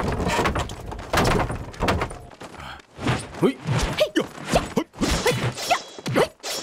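Fight-scene sound effects: a rapid series of punches and blows landing with thuds and whacks, mixed with short grunts and cries from the fighters, mostly in the second half.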